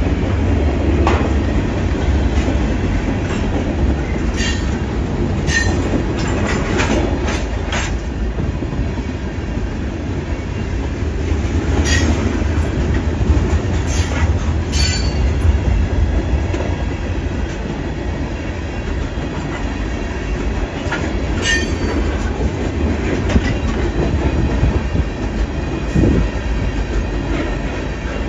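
Freight train cars (tank cars and covered hoppers) rolling past: a steady low rumble of wheels on rail, with brief high wheel squeals several times.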